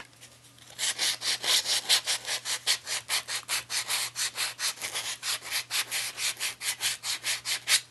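Wet/dry sandpaper, wetted in water, rubbed quickly back and forth over a polymer clay doll's body. It makes an even run of short scratchy strokes, about four or five a second, starting about a second in.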